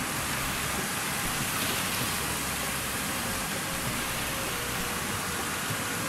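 Panjkora River rapids: fast water rushing over boulders, a steady, even rush of whitewater.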